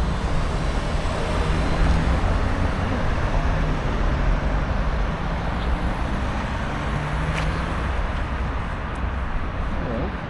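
Steady road traffic noise: cars passing with a continuous low rumble of engines and tyres.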